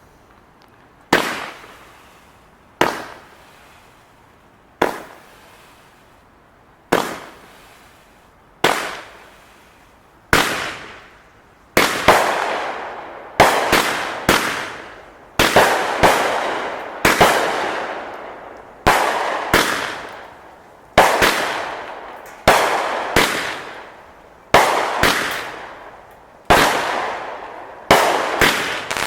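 A 200 gram, 20-shot consumer firework cake (Supreme Fireworks 'Poison') firing shot after shot. Each shot is a sharp bang followed by a fading hiss of the aerial effect. The shots come about every two seconds at first, then faster from about twelve seconds in, their tails running into each other.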